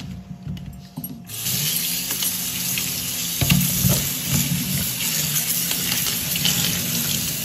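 A few small clicks of okra pods being handled, then about a second in a kitchen tap is turned on and water runs steadily into a plastic colander of okra in a stainless steel sink as hands turn and rub the pods under the stream.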